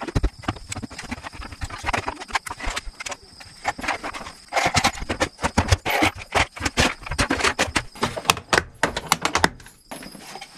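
Loose screws rattling and clinking as they are handled and sorted into the small plastic bins of a Milwaukee Packout organizer, a rapid, irregular run of small clicks, with the bins knocking against each other.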